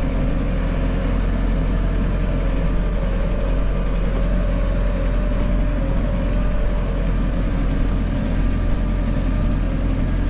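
Case IH Farmall 110C tractor's diesel engine running steadily, heard from inside the closed cab.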